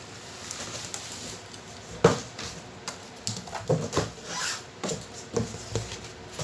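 Irregular knocks, taps and rustles of a loudspeaker and its packaging being handled, with one sharper knock about two seconds in.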